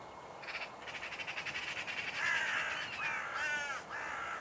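Hooded crows giving harsh cawing warning calls, a string of them through the second half, raised at buzzards over the field. Before the calls there is a rapid rattling chatter.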